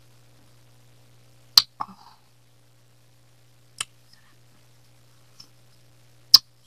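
Eating ice cream with a small spoon from a paper cup, heard as a few sharp, short clicks and smacks: one about one and a half seconds in with a couple of smaller ones after it, another near the middle, and the loudest near the end. A low steady hum lies under them.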